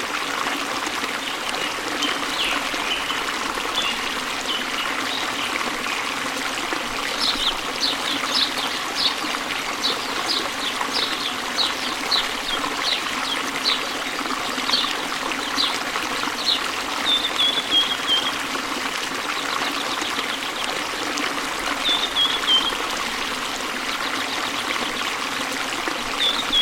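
Running water trickling steadily, with a small bird calling over it: a long run of short, high repeated notes, then a couple of brief falling trills.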